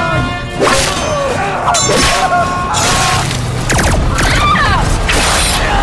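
Audio-drama soundtrack of music and sound effects. A held musical chord gives way about half a second in to a quick run of several loud bursts of noise, with sliding tones between them.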